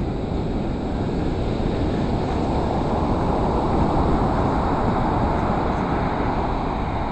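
Steady rushing noise of ocean surf and wind, swelling a little around the middle and easing off again.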